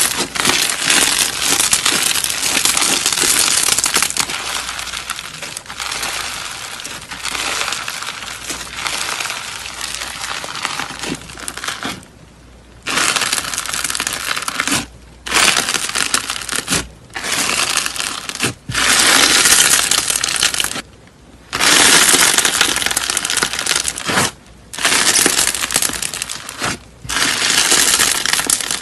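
Slime being squeezed and pressed, giving a dense crackling and crunching. From about twelve seconds in it comes in separate bursts of a second or two with short pauses between.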